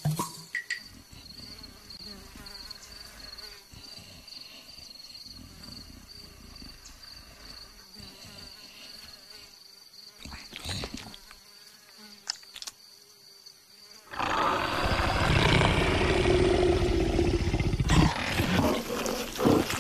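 Cartoon savanna ambience with a steady high insect buzz and a few faint clicks. About two-thirds of the way in, a loud low rumble starts as the fat leopard slides round the branch it is sleeping on, ending up hanging beneath it.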